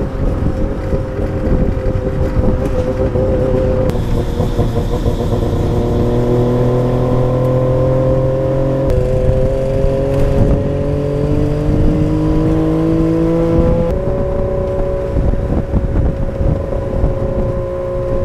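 Tuk-tuk's small engine running hard at road speed, heard from inside the open cab; its note rises slowly and jumps in pitch a couple of times along the way.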